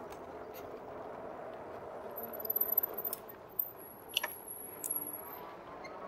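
Steady wind and rolling noise from a RadMini Step-Thru fat-tyre electric bike ridden along a sidewalk. A few short high squeaks and sharp clicks come about halfway through.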